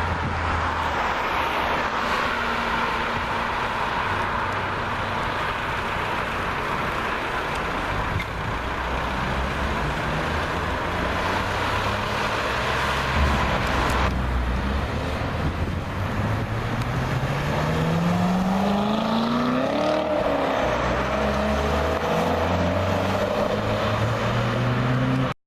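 Chevrolet Corvette C7 Stingray's 6.2-litre V8 running with a steady low rumble, then rising in pitch for a few seconds about two-thirds of the way through as the revs climb, before dropping back and running on.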